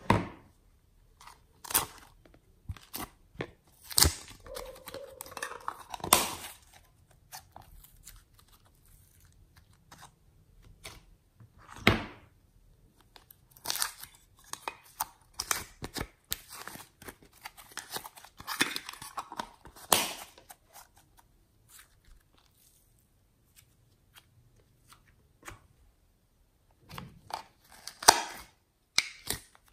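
Small plastic clay and slime containers handled by hand: scattered sharp clicks, taps and short rustles with quiet gaps between them, and a loud snap near the end as a lid is pulled off a container.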